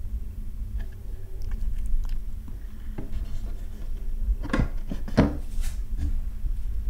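A calico cat grooming itself: small, irregular wet licking clicks. Two louder scuffs come a little past halfway, over a steady low rumble.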